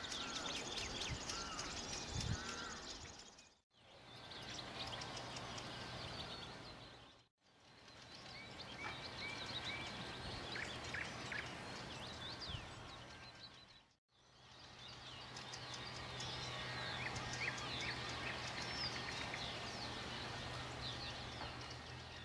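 Small birds chirping and singing over steady outdoor background noise, with a low steady hum in the later stretches: the distant engines of a passing river passenger motor ship. The sound drops out briefly three times.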